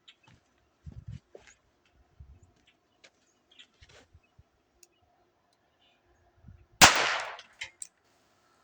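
A single shot from a .22 Ruger SP101 revolver about seven seconds in, with a short fading echo after it. Before the shot there are only faint clicks and rustling.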